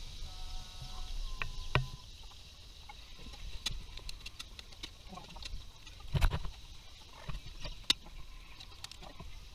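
Metal spoon clinking and knocking against an aluminium pan as chopped turkey meat is stirred, with scattered sharp knocks, the loudest about six seconds in.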